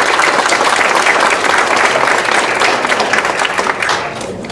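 Audience applauding and cheering for a graduate as he receives his diploma, a dense, steady clapping that fades out near the end.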